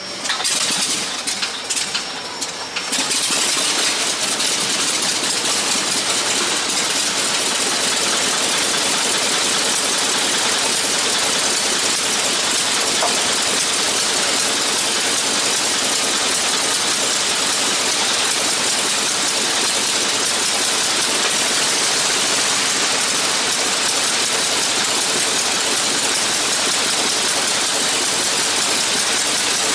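A replica Spirit of St. Louis's radial aircraft engine catching on the fifteenth pull of the propeller: it fires unevenly for about three seconds, then settles into a steady run.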